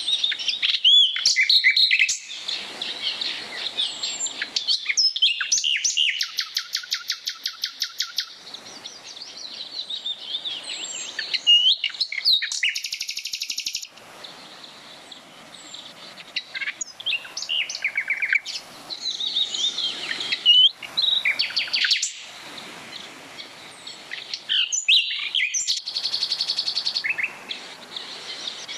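Several songbirds singing: short whistled notes and rapid trills from more than one bird, over the steady rush of a mountain stream.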